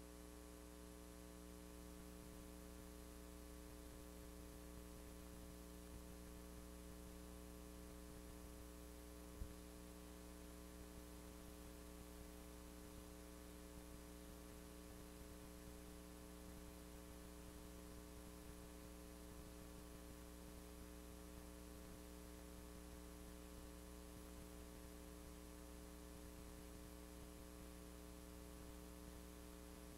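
Near silence: a steady electrical mains hum with its overtones, from the VHS playback and capture chain, over faint hiss. One faint click comes about nine seconds in.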